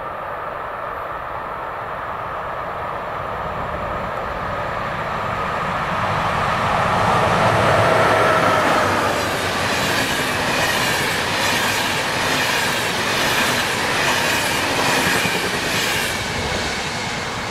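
Electric locomotive hauling a passenger train past at speed: a rising rush as it approaches, with a tone that falls in pitch as the locomotive passes. Then the coaches' wheels clack over the rail joints in an even rhythm, fading near the end.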